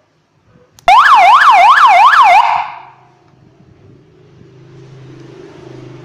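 Electronic siren horn speaker switched on with a click, sounding a loud, fast yelp whose pitch sweeps up and down about three times a second. It cuts off after about a second and a half and fades away.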